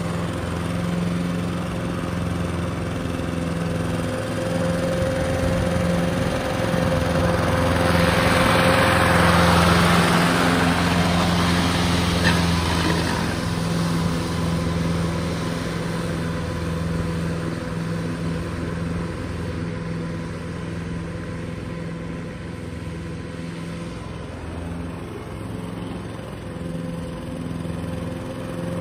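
Toro ProStripe 560 walk-behind rotary mower running steadily while cutting grass. It grows louder as it passes close by about a third of the way in, then fades as it moves away.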